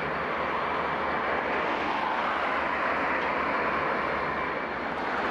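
Steady engine drone that holds level, with a low rumble beneath.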